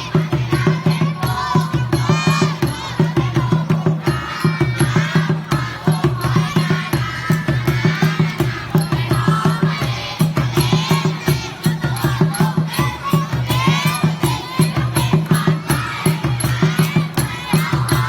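Music with a fast, steady beat and voices singing along as a group.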